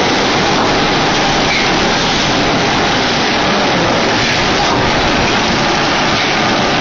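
Drinking-straw auto-packing machine running: a loud, steady, hiss-like mechanical noise with no clear rhythm.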